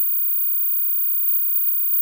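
Dog-whistle tone: a single loud, steady, very high-pitched whistle that holds one pitch throughout.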